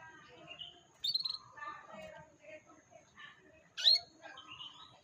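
Domestic canary singing a varied song of quick trills and short pitched phrases, with loud sharp notes about a second in and again near four seconds.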